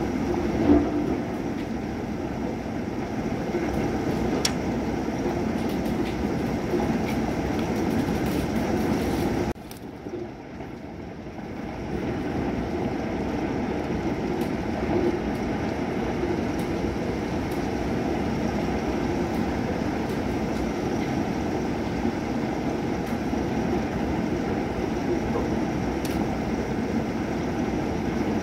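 Thunderstorm: a continuous low rumbling noise with a few faint clicks. It drops away suddenly about ten seconds in and comes back some two seconds later.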